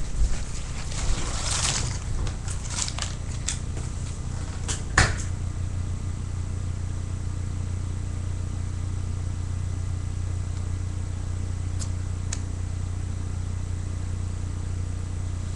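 Steady low hum with no speech. In the first few seconds there are scattered clicks and rustle-like handling noises, and a single sharper knock comes about five seconds in.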